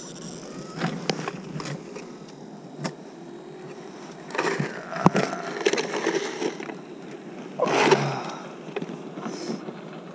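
Rustling, scraping and scattered knocks as an ice angler shifts about on crusted ice, heavy clothing brushing against the camera, with one sharp knock about halfway through.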